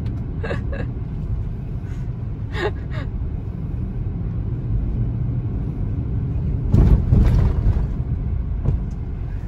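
Steady low road and engine rumble inside a moving car's cabin. A few short sharp sounds come in the first three seconds, and a louder swell of noise lasting about a second comes about seven seconds in.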